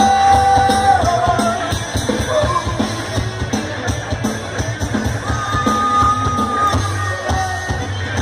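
Live rock band playing an instrumental passage: a steady drum-kit beat under long held, slightly bending lead notes.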